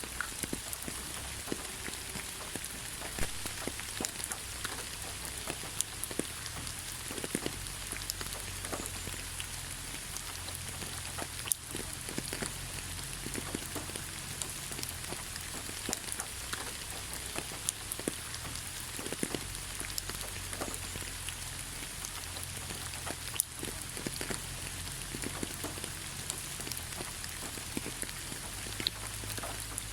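Steady rain falling on leaves: an even hiss with many separate drops tapping.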